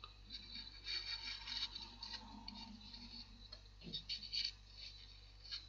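Faint rubbing, scraping and light clicks from a clear cast model being handled and turned in the hands.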